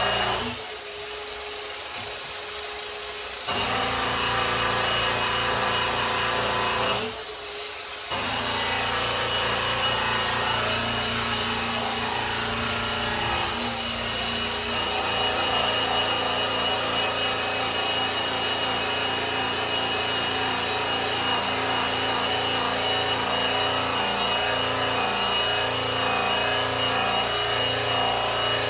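Electric polisher running, buffing the finish of a grand piano, a steady motor hum with the pad rubbing on the lacquer. It eases off briefly twice, about a second in and again around seven seconds.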